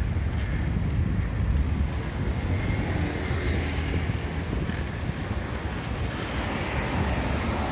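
Wind buffeting the microphone of a camera riding on a moving bicycle: a steady low rumble with no breaks.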